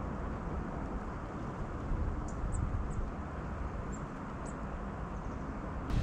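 Steady low rumble of wind on the microphone, with a few faint, short, high-pitched bird calls between about two and five seconds in.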